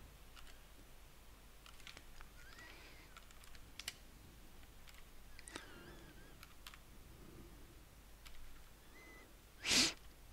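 Faint, scattered clicks of a computer mouse, with a short, louder rush of noise near the end.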